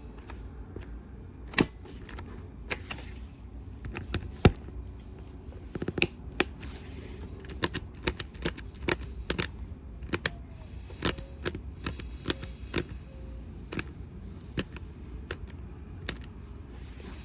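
Irregular sharp clicks and knocks of a hard-shell plastic suitcase being handled, over a steady low hum.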